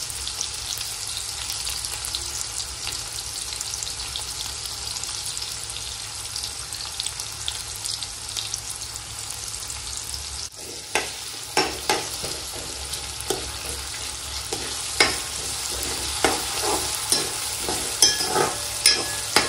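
Chopped onion sizzling in hot oil in a kadhai, cooking on a medium flame to soften. From about halfway through, irregular stirring strokes scrape and knock against the pan.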